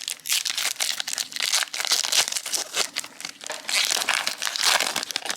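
Pokémon booster pack wrappers crinkling and tearing as packs are opened and handled, a dense run of crackles.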